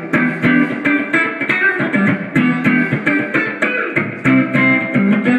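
Guitar playing a quick run of picked notes, several a second.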